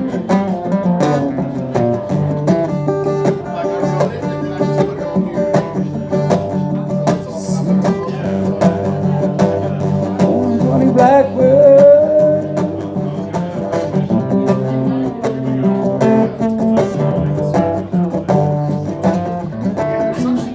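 Acoustic guitar playing an instrumental break of a blues song in a steady strummed rhythm, with one bending, wavering note about halfway through.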